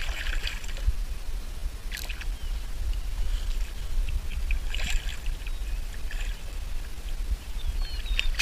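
A hooked largemouth bass splashing at the surface about five times as it is reeled up beside a kayak, over a steady low rumble of wind on the microphone.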